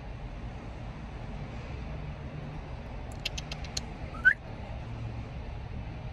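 Steady low hum inside a parked car. About three seconds in comes a quick run of about six small clicks, then a brief rising high squeak, the loudest sound.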